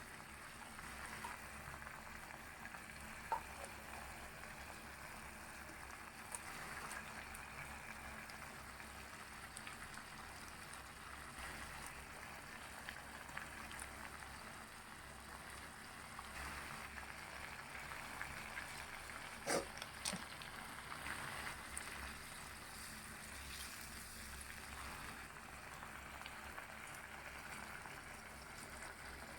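Squid cooking in chili sambal in a pan, a faint steady sizzle and bubbling, with a few sharp knocks about 3 seconds in and twice around 20 seconds in.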